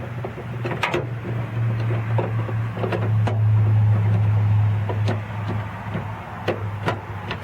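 Scattered light clicks and knocks of door-handle parts being handled and fitted inside a car door, over a steady low hum that swells louder in the middle.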